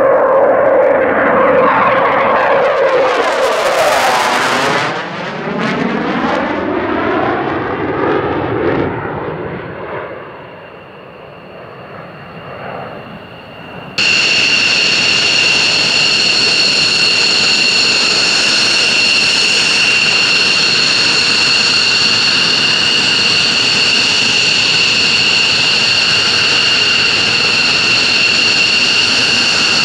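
F-4 Phantom II's J79 jet engines passing and climbing away, a loud jet rush with a swirling, phasing sweep that fades to a low rumble about ten seconds in. From about fourteen seconds in, a steady high-pitched whine of F-15 jet engines idling on the flight line.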